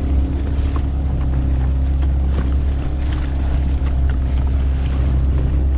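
Fishing boat's motor running at a steady speed while under way, a constant low drone with a wash of noise over it.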